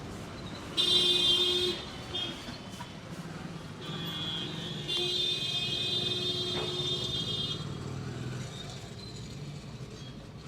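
Street traffic with vehicle horns honking: a loud, high-pitched honk about a second in, then a longer one of about three seconds in the middle, over the low hum of passing vehicles.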